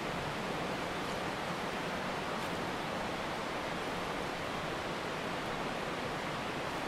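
A steady, even rushing noise with no pitch or rhythm, like flowing water or wind.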